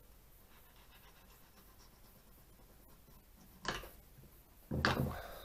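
Faint scraping of a sharp knife drawn along a dogfish's cartilage as a fillet is cut free, then a short sharp knock and, near the end, a louder breathy rustle.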